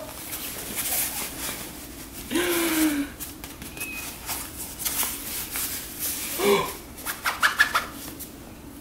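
Rustling of a toddler's jacket and mittens as they are pulled on, with two short wordless voice sounds: one about two and a half seconds in, and one falling in pitch about six and a half seconds in.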